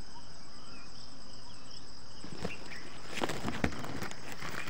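Insects droning steadily on one high tone, with a few short bird chirps. About halfway through, a run of close rustling and crackling starts and becomes the loudest sound.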